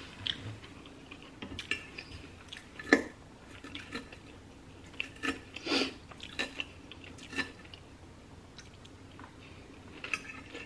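Close-up eating sounds: chewing, with scattered clicks and scrapes of a metal fork against a plate as chopped salad is picked up. The sharpest clicks come about 3 and 6 seconds in.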